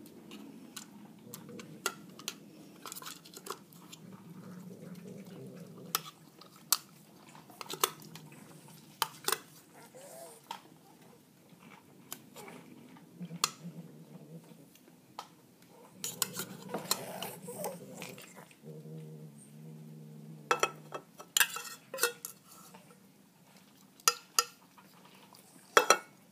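Metal cat-food tin clinking and scraping as food is scooped out of it, in many scattered sharp clicks. A few low hums of a second or two sound in between.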